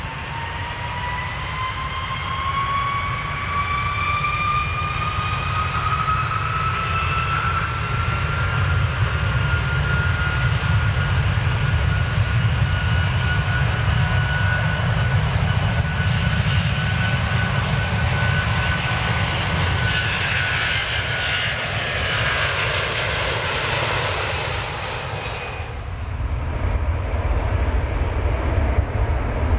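Airplane engines during takeoff: a whine rises in pitch over the first several seconds and then holds steady over a constant low rumble. The engine noise builds to a louder rush, which drops away suddenly near the end, leaving only the low rumble.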